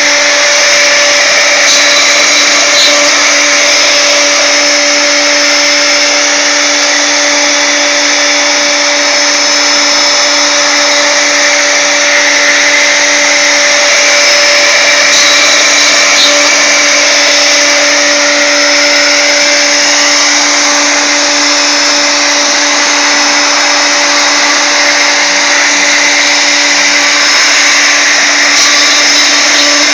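CNC router spindle running steadily at a constant pitch and level while its small ball-nose bit makes a finishing pass through softwood, a whirring cut with no let-up.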